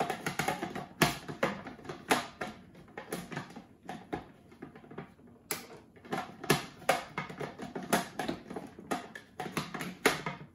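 Plastic lid and bowl of a Bosch MCM3200W food processor clicking and knocking as it is twisted and pressed onto its seat, in many irregular sharp clicks. The lid is caught and has not yet locked into the safety interlock, so the machine stays without power.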